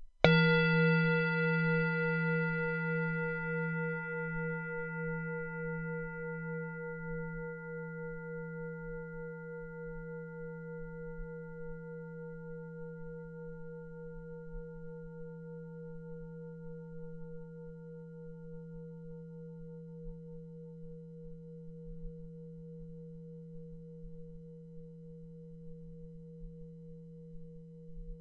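A singing bowl struck once, ringing with a low hum and several higher overtones. The higher overtones die away within a few seconds while the low tone rings on, wavering as it slowly fades.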